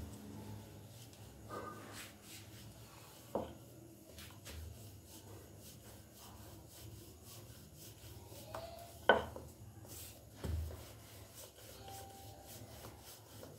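Wooden rolling pin rolling a sheet of stiff dough on a flour-dusted stone countertop: faint rubbing, with a few sharp knocks as the pin is set down or shifted. The loudest knock comes about nine seconds in and is followed by a duller thump.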